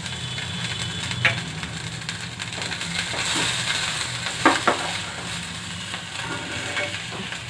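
Ginger-garlic paste and chopped green chilli sizzling in hot oil in a pan while being stirred, with sharp taps of the spoon against the pan about a second in and twice in quick succession around four and a half seconds.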